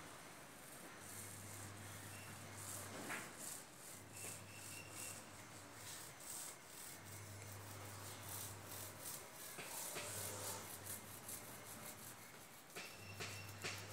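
Paint roller on a long extension pole rubbing over a textured wall in repeated strokes, a couple a second, coming faster in the second half.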